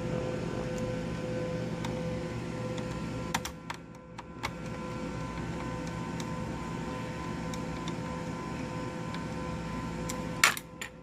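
Light clicks and taps of a small screw and plastic laptop parts being handled, a cluster of them about three to four seconds in and a sharper one near the end, over a steady hum.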